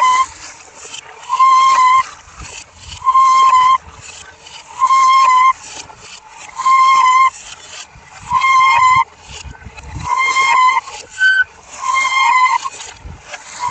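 A truck's reversing alarm beeping in a steady rhythm, one loud half-second tone about every 1.7 seconds, with a low irregular rumble between the beeps.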